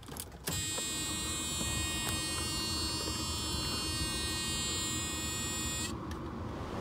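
Mercedes W124 auxiliary electric cooling fan starting with a click about half a second in and running at high speed, a steady rush with a high buzz over it that stops near the end.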